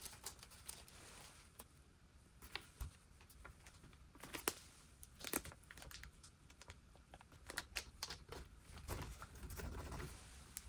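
Light handling noises: irregular clicks and crinkling, like material being handled or torn, with a soft low rumble near the end.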